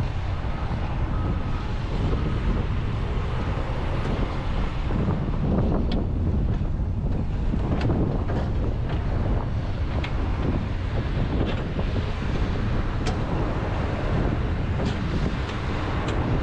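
John Deere 210G excavator's diesel engine running steadily, with wind buffeting the microphone. Several short sharp knocks sound over it, the bucket working a frozen peat moss pile.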